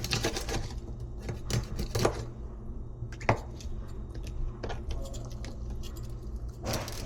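Kitchen utensils and cookware knocking and clicking during food preparation, in scattered irregular strikes, the sharpest knock about three seconds in, over a steady low hum.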